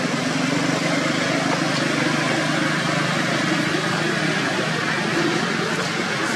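A motor vehicle's engine running steadily, a constant low hum under an even hiss.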